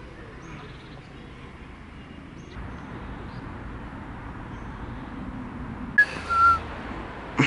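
Outdoor city park ambience: a steady hum of distant traffic with a few faint short chirps. About six seconds in there is a sudden sharp sound, then a brief loud whistle-like note.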